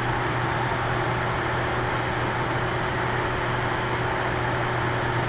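Steady cockpit noise of a Learjet 60XR business jet in flight: an even rush of airflow with a steady low hum and a fainter higher tone.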